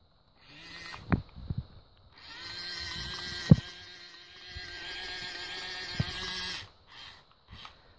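Small electric motor of a toy crane whining as the lever on its wired remote is pressed, in short runs: briefly about half a second in, then steadily for about four seconds, then two short blips near the end. A few sharp plastic knocks come in between, the loudest about three and a half seconds in.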